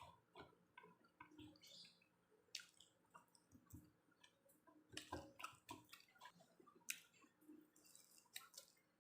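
Faint, irregular wet clicks and smacks of a person chewing French fries.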